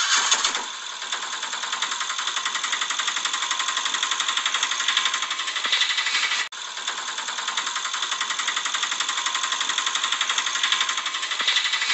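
Tinny, rapidly pulsing engine putter of a small auto-rickshaw engine sound, steady throughout with no bass; it drops out for an instant about six and a half seconds in.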